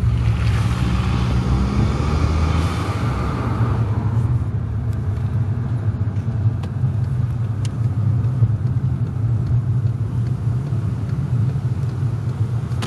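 Volkswagen GTI Mk V's turbocharged four-cylinder engine running while driving, heard from inside the cabin with a steady low drone. A rushing hiss swells in the first seconds and fades out about four seconds in.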